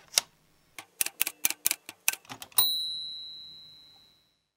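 Manual typewriter typing: a quick run of about a dozen sharp clacks as the typebars strike the paper. About halfway through, the carriage bell dings once and rings out for over a second.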